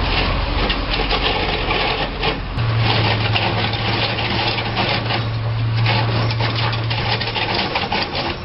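Heavy machinery running with a dense, continuous rattle over a steady hum; the hum shifts to a higher pitch about two and a half seconds in.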